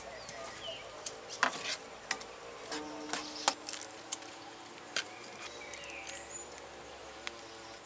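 Metal ladle clinking against a clay cooking pot, a scatter of sharp clicks and knocks, over a steady high-pitched insect trill and faint background music.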